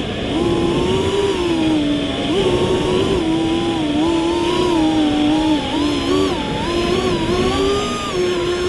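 FPV quadcopter's motors and propellers buzzing, the pitch rising and falling with the throttle.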